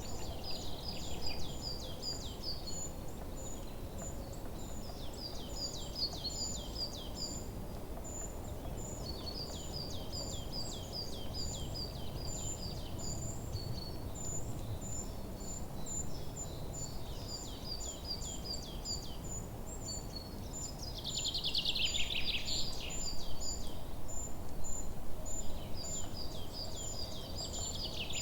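Forest birds singing: one bird repeats a short phrase of rapid notes every few seconds, louder around the two-thirds mark, over a steady series of short high-pitched chirps and a soft background hiss.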